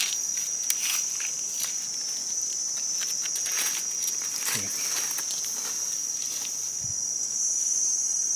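Steady high-pitched drone of forest insects, with scattered soft clicks, scrapes and rustles of a knife and hands working a mushroom out of the soil and leaf litter.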